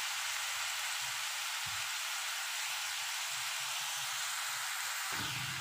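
Sliced onions frying in hot oil in a kadai, a steady sizzle.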